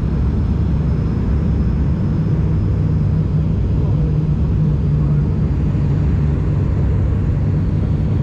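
Steady cabin drone of an ATR 42-600's twin Pratt & Whitney PW127 turboprop engines and propellers, heard from inside the passenger cabin on approach. It has a constant low hum under a wide rush of noise.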